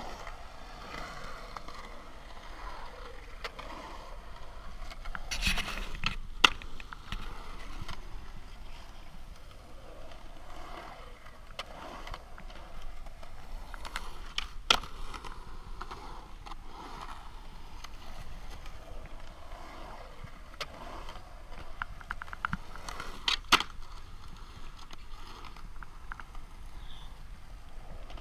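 Skateboard wheels rolling and carving around a concrete bowl, a steady rolling rumble, broken by a few sharp clacks of the board against the concrete.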